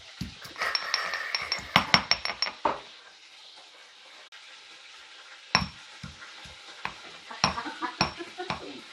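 Ginger and garlic being pounded with a pestle: steady thuds about three a second with sharp metallic clinks. It pauses for a couple of seconds midway, then resumes.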